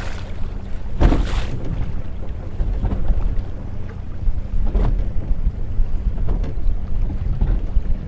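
Wind buffeting the microphone on a small boat, with water slapping against the hull in a few brief surges and a faint steady hum underneath.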